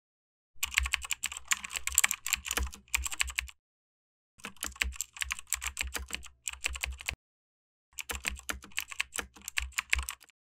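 Rapid computer keyboard typing in three bursts of about three seconds each, with short silent pauses between them.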